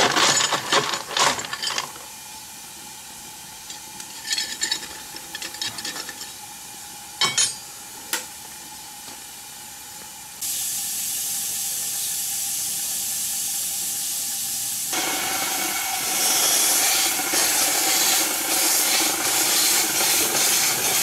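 7¼-inch gauge live-steam locomotive hissing steam, with a few sharp metal clinks at the start. The hiss starts suddenly about ten seconds in and grows louder and fuller around fifteen seconds.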